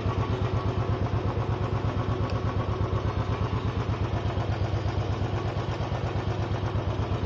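Single-cylinder motorcycle engine idling with a steady, even beat.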